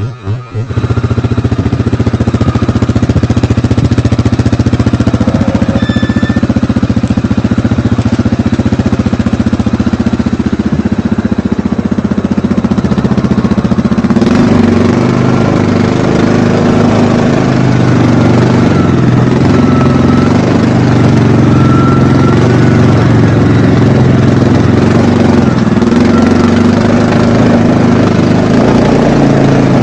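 ATV engine running continuously; about halfway through, its note turns rougher and more uneven.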